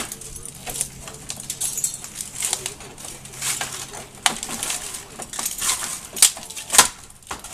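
Irregular metal scraping and clanking as old metal window-frame pieces are worked loose and pulled out of a window opening, with the sharpest clanks near the end.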